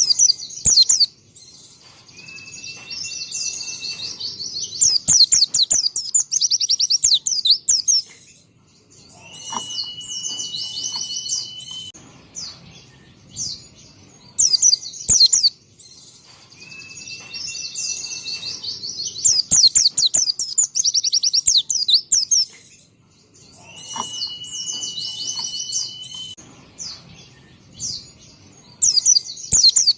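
White-eye (pleci) singing: bursts of fast, high twittering song alternate with long steady whistled notes. The same song sequence comes round again about every 14 seconds.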